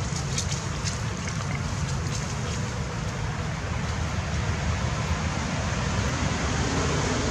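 Steady outdoor background noise: a low, fluctuating rumble under an even hiss, with a few faint ticks in the first couple of seconds.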